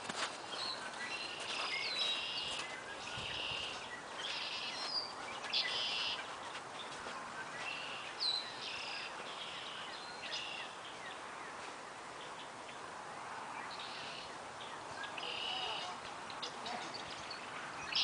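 Small birds chirping in short bursts of high chirps, about one burst every second or two, with a quieter spell in the middle, over a steady outdoor background hiss.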